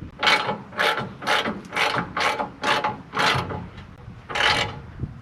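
Hand ratchet wrench clicking in repeated strokes, about two a second, as a freshly broken-loose bumper bolt is backed out, with a short pause before a last stroke near the end.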